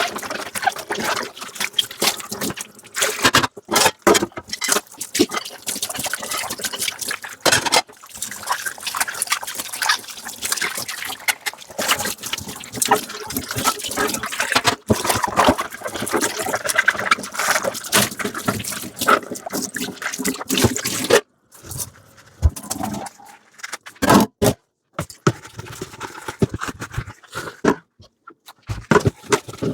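Dishes being washed by hand at a sink: splashing water with dishes clinking, scraping and squeaking against each other. About two-thirds of the way through the splashing stops, leaving scattered knocks of dishes being set down.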